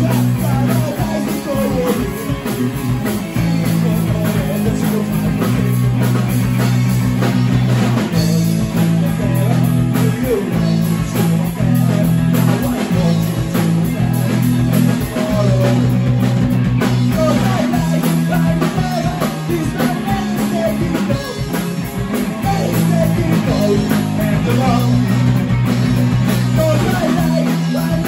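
Live rock band playing loud: distorted electric guitars over a drum kit, with a man singing into the microphone at times.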